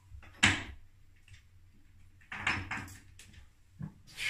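A sharp knock about half a second in as the bath plug is set into the plughole, a few clattering knocks around the middle, then water starting to gush from the bath tap near the end.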